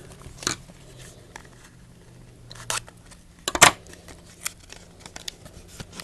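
A trading-card pack being opened by hand: its wrapper tearing and crinkling in scattered sharp crackles, loudest about three and a half seconds in.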